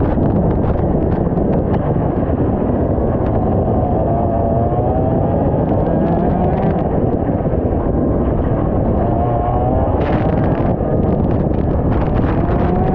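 IAME X30 125cc two-stroke kart engine under acceleration, its note climbing steadily about three times as the kart picks up speed. It is largely buried under heavy wind rumble on the microphone.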